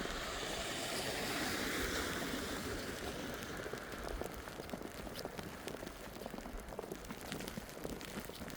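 Footsteps crunching through fresh snow over a steady hiss, with a broad swell of rushing noise in the first couple of seconds.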